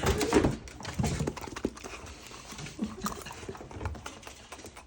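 Belgian Malinois puppies eagerly licking and smacking at Greek yoghurt: a rapid, uneven run of wet mouth clicks and lapping sounds, busiest near the start.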